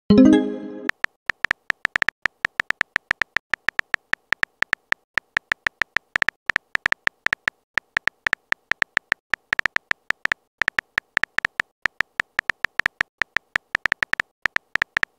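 Simulated keyboard typing clicks from a texting-story app: short, sharp ticks, several a second at an uneven pace, as a message is typed out letter by letter. The first second holds the app's pitched message-sent chime, fading out.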